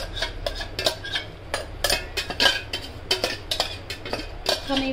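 A steel spoon scraping and knocking against a steel mixer-grinder jar and kadhai as the ground masala paste is scraped out into the pan, giving irregular metallic clinks and clatter.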